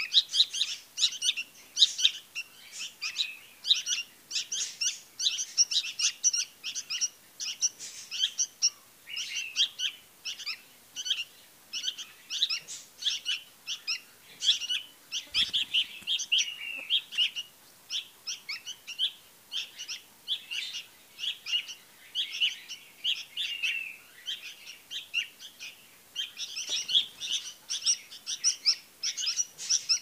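Bulbul fledglings begging: rapid, repeated short high chirps from several chicks calling over one another without pause.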